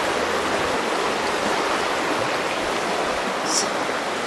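Creek water rushing steadily over rocks, with a brief high hiss about three and a half seconds in.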